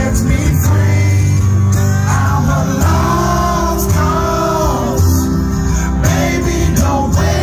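Live concert music played loud through a PA: a man singing into a microphone over a band with guitar and heavy bass.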